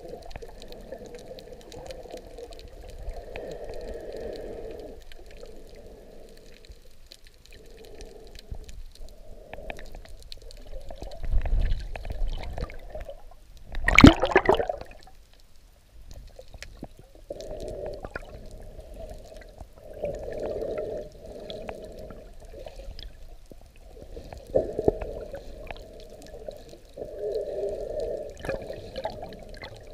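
Muffled water sloshing and rushing, recorded by an underwater camera while snorkeling, coming in uneven surges every second or two. About halfway through there is one loud splash with a rush of bubbles near the surface.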